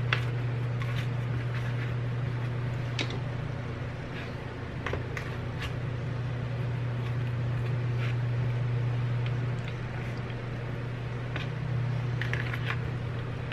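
Potato halves being set and pressed into a disposable aluminium foil pan, with scattered small clicks and crinkles of the foil, over a steady low hum.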